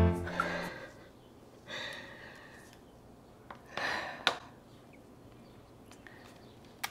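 The last notes of a piano music cue die away, then a woman breathes out audibly twice, about two seconds apart. A small click sounds near the end.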